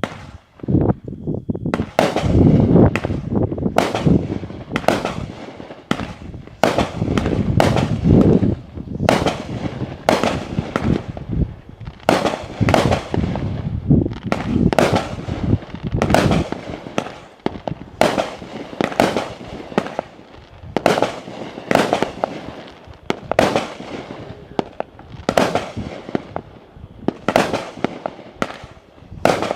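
Spacey Tracey firework going off: a few small pops in the first second or so, then a long, fairly regular series of sharp bangs, about one to two a second, each with a short echoing tail.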